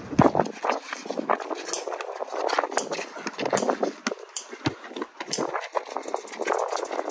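A basketball bouncing on a concrete court as it is dribbled, mixed with sneakers scuffing and shuffling: a run of irregular sharp thumps and scrapes.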